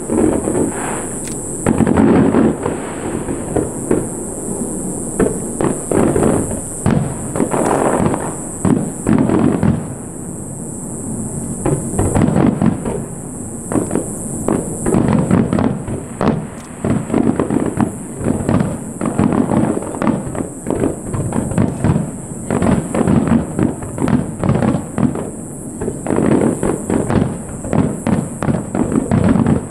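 Aerial fireworks shells bursting in a rapid string of bangs and crackles. The bangs ease off briefly about ten seconds in, then come back as a dense barrage through the second half.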